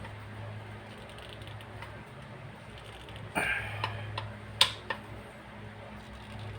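Hand tools clinking on the metal piston parts of an oil-free dental air compressor as they are tightened: a short ringing clatter about three and a half seconds in, then four sharp clicks over the next second and a half, over a steady low hum.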